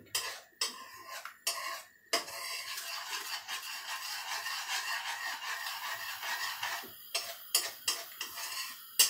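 A metal spoon stirring and scraping a thin sauce around a frying pan, with clinks and knocks of the spoon against the pan, a few near the start, a quick run of them in the last couple of seconds, and the sharpest one near the end.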